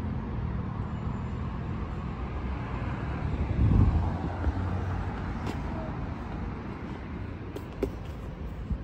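Outdoor street ambience: a steady hum of road traffic, with a few light clicks near the end.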